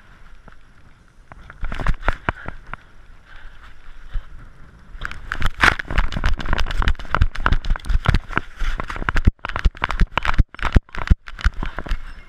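Knocking and rubbing noise of a GoPro Hero 3 Black camera hanging from a pit bull's neck as the dog moves and runs: rapid, irregular thumps and scrapes, sparse at first and nearly continuous from about five seconds in.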